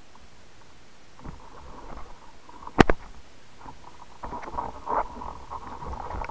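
Underwater handling knocks and clicks picked up through a camera housing mounted on a speargun, as the gun, its shooting line and the speared fish are handled: one sharp knock about three seconds in, then a run of smaller clicks and crackles near the end.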